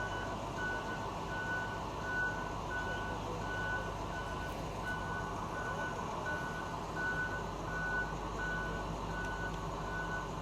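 Reversing alarm on a heavy vehicle or construction machine, beeping at an even pace of about three beeps every two seconds. A steady low rumble of engines runs underneath.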